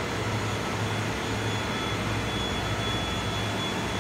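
Steady ship's engine-room machinery noise: a constant low hum under an even rushing noise, with a thin high whine.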